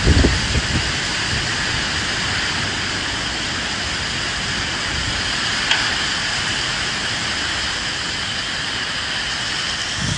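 Steady rain falling with wind: a continuous even hiss, with low gusty rumbles swelling right at the start and again at the very end.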